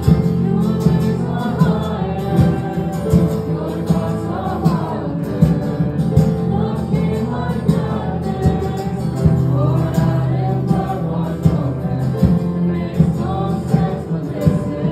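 Live worship band playing with a sung vocal over drum kit, guitars and keyboard, with a steady drum beat.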